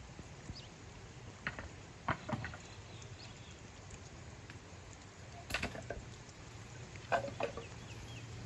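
Dry twigs and brush crackling and crunching as they are carried and set down on stony ground, in about five short sharp sounds over a faint steady background hiss.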